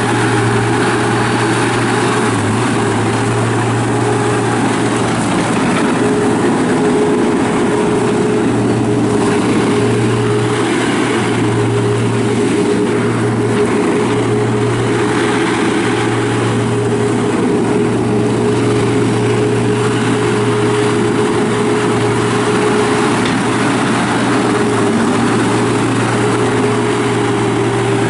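2008 John Deere CT332 rubber-track skid steer loader's diesel engine running at a steady speed, its note constant throughout.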